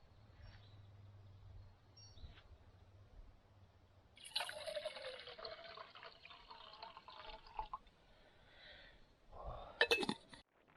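Water poured into a cooking pot or cup for about three and a half seconds, starting about four seconds in. A short loud clatter follows near the end.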